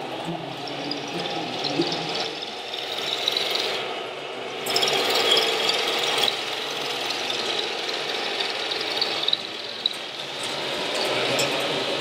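Electric drive motors and gearboxes of radio-controlled model trucks whirring and grinding as they drive over the dirt course; the noise gets louder about five seconds in.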